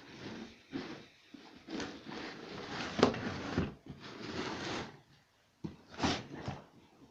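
Irregular rubbing and knocking of handled objects, with a sharp click about three seconds in.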